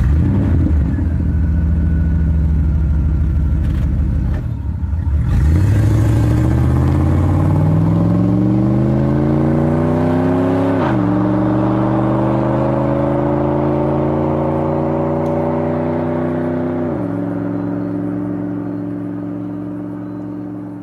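2005 Toyota 4Runner's engine idling, then pulling away: the revs climb steadily, fall at an upshift about halfway through, climb again and fall at a second upshift, and the sound fades as the truck drives off.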